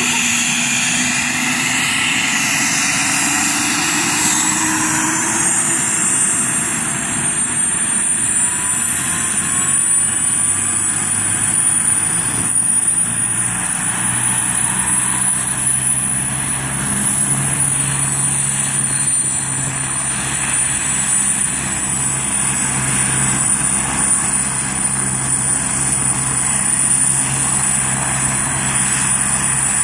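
Agusta A109K2 helicopter's twin turboshaft engines spooling up on the ground before takeoff: a whine rises in pitch over the first several seconds, then holds as a steady high whine over a low hum from the turning rotor.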